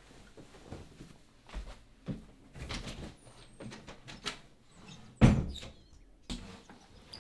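Scattered knocks and bumps, with one loud thump about five seconds in.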